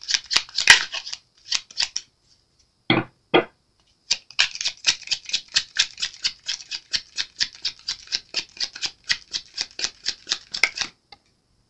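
Tarot cards being shuffled by hand, the cards snapping against each other in a fast, even run of about six clicks a second. Earlier come a few scattered card snaps and two duller knocks about three seconds in.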